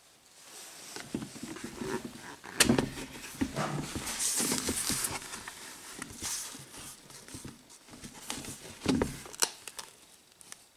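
Handling noise around the resin casting and its plywood mould: irregular knocks, sharp clicks and rustling, with a short stretch of hiss about four seconds in and the loudest clicks about two and a half and nine seconds in.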